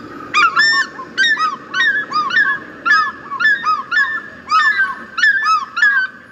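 A bird calling over and over: short honking notes that rise and fall in pitch, in quick groups of two or three, about one group a second.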